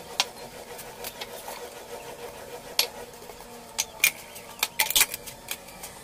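Dishes, cups and glasses clinking and knocking against each other and the sink during hand dishwashing: a scattering of short sharp clinks, busiest about four to five seconds in, over a faint steady hum.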